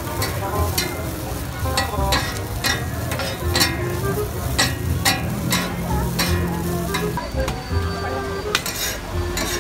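Two metal spatulas scraping and clacking on a flat steel griddle as fried noodles with bean sprouts are tossed and gathered up, over a steady sizzle of frying.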